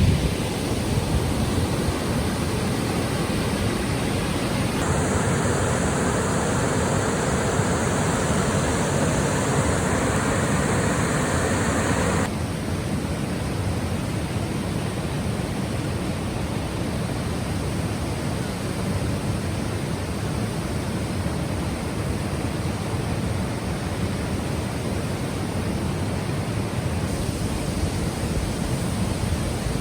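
Steady rushing of falling and flowing river water. Its tone changes abruptly twice, about five and twelve seconds in.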